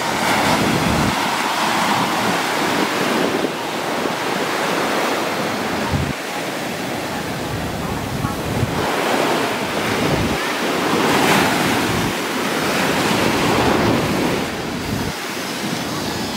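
Small waves breaking and washing up a sandy beach, the surf swelling and easing every few seconds, with wind gusting on the microphone.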